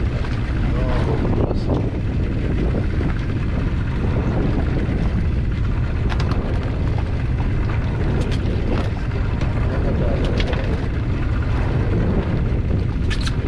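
Wind buffeting the microphone on an open boat at sea: a steady, heavy low rumble, with a few faint clicks and knocks scattered through.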